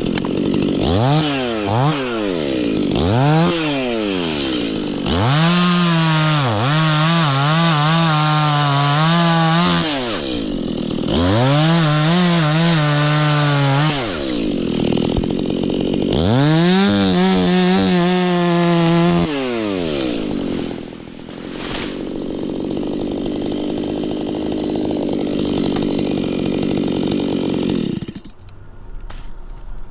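Two-stroke chainsaw blipped twice, then held at full throttle through three long cuts into wood, its pitch dipping slightly under load. It then drops to a lower steady run for several seconds and dies away near the end.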